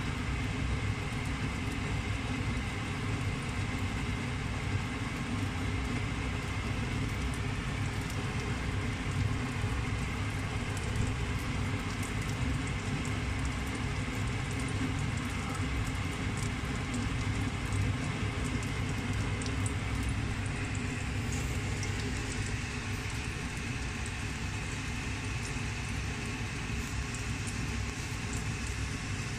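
Breaded fish fillets frying in oil in a pan: a steady sizzle full of fine crackles, over a steady low rumble.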